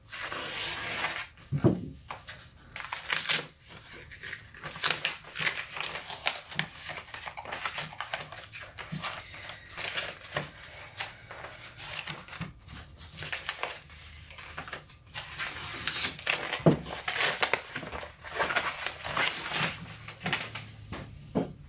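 A padded paper mailer being slit open with a small blade, then paper and cardboard packaging crinkling and rustling as the contents are pulled out, with many sharp crackles and scrapes.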